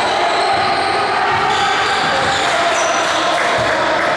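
Basketball bouncing on a hardwood gym court, over steady, echoing gym noise.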